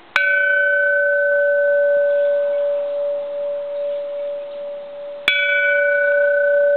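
Bronze Japanese Buddhist temple bell from 1792 struck twice with its striker, about five seconds apart. Each strike rings out with a clear tone; the higher overtones die away within a few seconds while the main tone keeps ringing long and steady.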